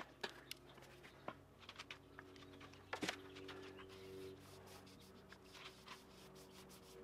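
Very quiet: a few faint scattered ticks and taps, then faint background music comes in about three seconds in.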